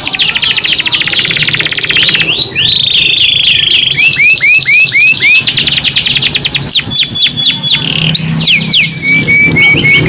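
Domestic canaries singing a long, continuous rolling song: fast series of falling whistled notes alternating with very rapid trills and a few held whistled notes.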